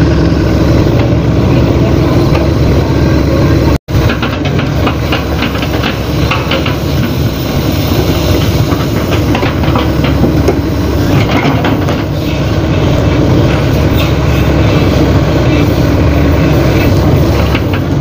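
Crawler excavator's diesel engine running loud and steady while the machine works, with repeated metallic clanking and rattling from its boom, bucket and tracks.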